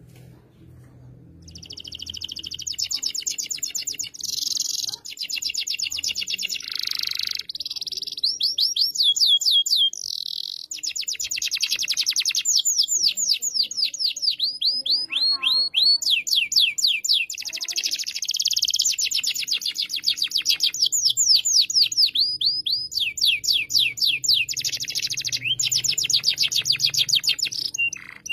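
Domestic canary in full song: high-pitched, fast trills of rapidly repeated notes, one rolling phrase after another at changing pitches, starting about a second and a half in.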